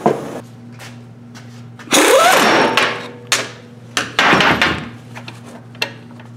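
Handheld power wrench run in several short bursts on the nut of a GM upper control arm cross shaft, the first burst rising in pitch as it spins up, the later ones loud and rattling.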